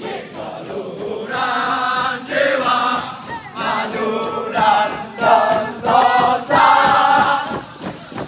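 Indonesian Navy trainees singing a running song in unison while jogging in formation, in short chanted phrases. The singing gets louder about a second in.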